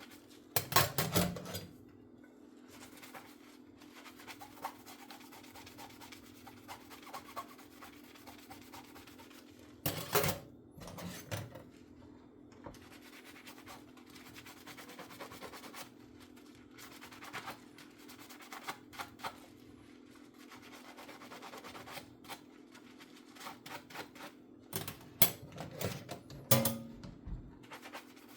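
Hand-washing dishes: a sponge scrubbing dishes, with sharp clinks and knocks of dishes about a second in, around ten seconds in, and several near the end. A steady low hum runs underneath.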